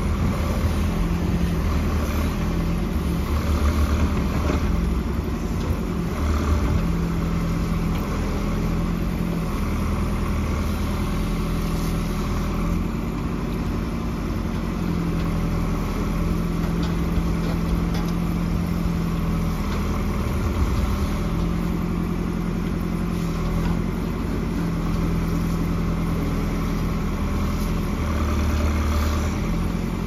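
Diesel engine of a backhoe loader running at work, its note swelling and easing every few seconds as the load on it changes.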